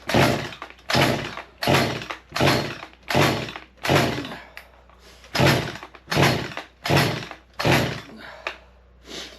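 Small two-stroke climbing chainsaw being pull-started: about ten quick, hard pulls on the recoil starter cord, with a short pause about halfway, and the engine never catches. Fuel can be smelled and the owner suspects the saw is flooded.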